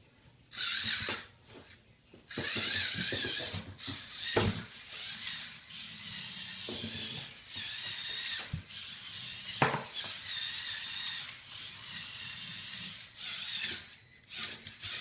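Lego Technic RC off-roader driving, its Power Functions XL motor and plastic gear train whirring in stop-start runs. A couple of sharp knocks stand out among the whirring.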